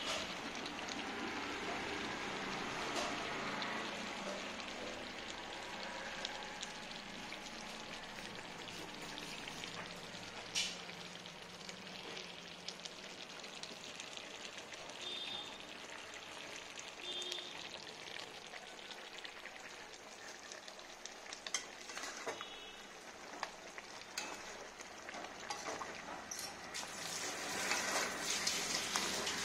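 Chicken curry sizzling steadily in a kadai on the stove, with scattered sharp clicks that grow louder and busier near the end.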